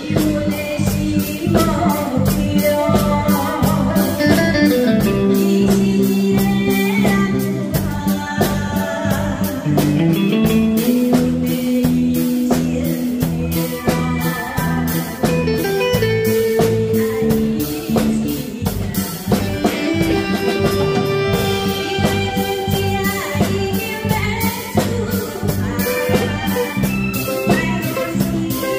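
A woman singing a Taiwanese ballad into a handheld microphone, backed by a live band: a drum kit keeping a steady beat, with keyboard and electric guitar.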